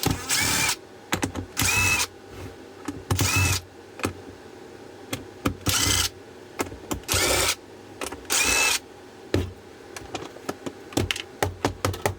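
A cordless power screwdriver runs in six short bursts of about half a second each, every one ending in a brief rising whine, as it backs out the Phillips screws holding the battery pack case shut. Small clicks and rattles of the screws and the plastic case fall between the bursts.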